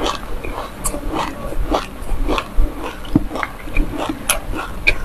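Close-up chewing of a packed ball of black and white sesame seeds, with irregular crisp crunches and crackles several times a second.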